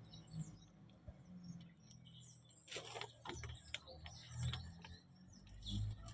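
Faint bird chirps, short and high, with a few light clicks and taps scattered through.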